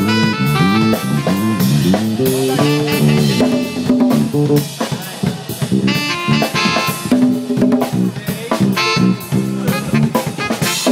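Live band music with congas and drums keeping a busy beat under a pitched melodic line that slides between notes.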